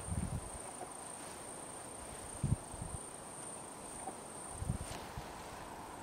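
Steady high-pitched insect chirring in a pine forest, with a few short low thumps, the loudest moments.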